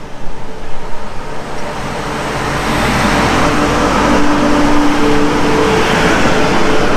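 Rumble and rush of a moving train, growing steadily louder over a few seconds, with a low steady hum underneath.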